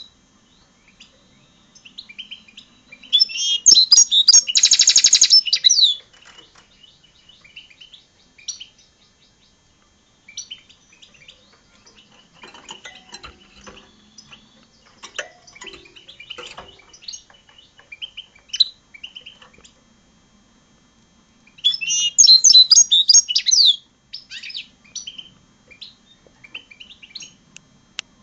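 Hybrid European goldfinch × red siskin singing: two loud bursts of rapid twittering song, the first ending in a long buzzy note, with softer scattered chirps and twitters between them.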